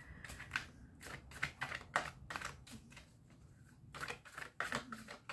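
Tarot cards being handled and shuffled: light, irregular clicks and flicks of card on card.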